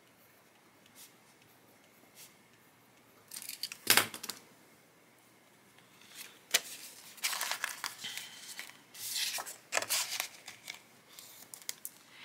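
Paper banknotes and clear plastic binder envelopes being handled: bursts of rustling and crinkling with a few sharp clicks, starting a few seconds in.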